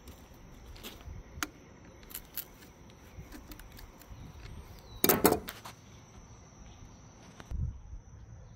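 Steel pliers clicking and clinking on a nut welded onto a stuck bolt in an excavator's final-drive hub as the bolt is worked out, with a louder rattle of metal clicks about five seconds in. A dull thump near the end.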